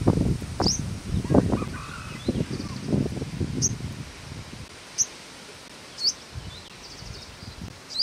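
Purple sunbird calling: about five short, sharp, high-pitched chirps at uneven intervals. Low rustling and wind noise on the microphone underneath, heaviest in the first few seconds.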